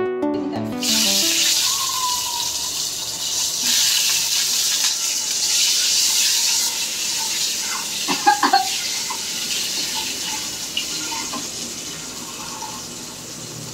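Boiled eggs frying in hot oil in a pan, a steady sizzle that is loudest over the first half and then eases off. A few light clatters about eight seconds in.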